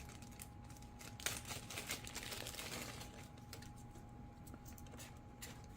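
Faint rustling and small plastic clicks as a battery and its plug are handled and connected in a toy RC jet's battery compartment.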